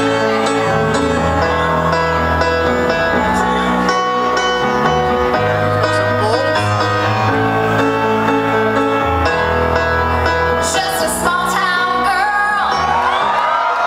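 Rock band playing live through a concert PA, heard from the crowd in a large hall; a woman's singing voice comes in over the band about eleven seconds in.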